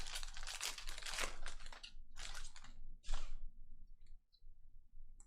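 Plastic trading-card pack wrapper being torn open and crinkled, in a run of rustling bursts that stops about three and a half seconds in, followed by a few faint ticks.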